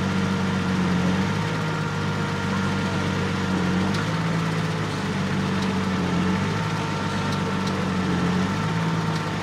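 MAN 6x6 trial truck's engine running at low, fairly steady revs as the truck crawls over a mound, with the pitch easing up and down a little. A few light clicks sound over it.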